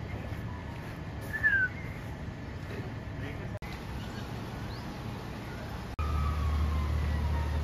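Outdoor city ambience: a bird gives one short falling chirp about a second and a half in. About six seconds in, a steady low rumble of wind on the microphone starts, with the slow falling wail of a distant siren.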